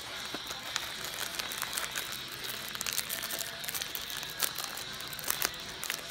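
Pocky snack packet being handled, crinkling and crackling, with the sharpest crackles about four and a half and five and a half seconds in.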